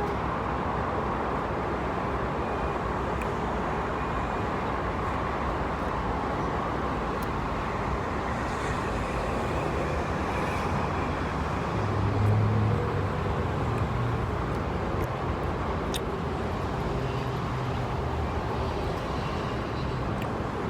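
Steady road traffic noise, with a vehicle's low engine hum swelling for a couple of seconds about twelve seconds in.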